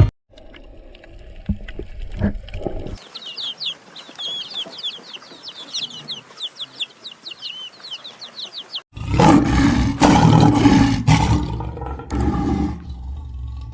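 Animal sounds: from about three seconds in, a quick run of many short, high chirps; from about nine seconds in, a loud call lasting about four seconds.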